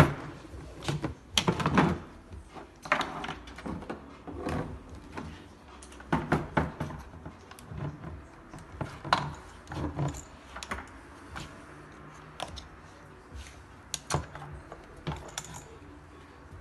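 Irregular clicks, taps and knocks of small parts and hand tools being handled while the Audi Q7's electric tailgate motor is taken apart, with a louder knock at the start and clusters of clatter every second or two.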